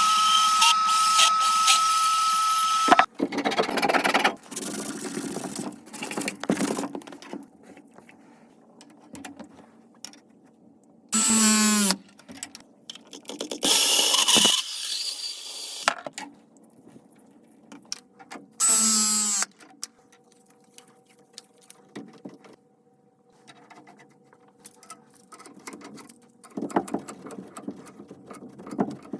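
Milwaukee M12 Fuel cordless bandsaw cutting through pipe for a few seconds, followed by clatter of handling. Later a battery press tool with MegaPress jaws runs twice, each a short motor whir of about a second, crimping fittings onto the pipe.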